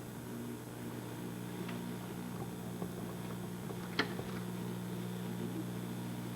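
Steady low hum with a faint background hiss, broken by a single sharp click about four seconds in.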